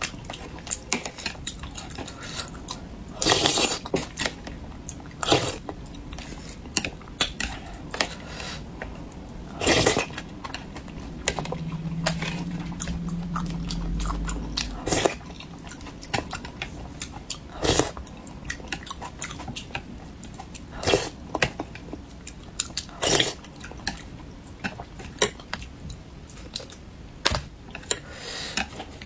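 Close-miked eating of braised fish: chewing and bites, with irregular clicks of chopsticks and a metal spoon against the dish.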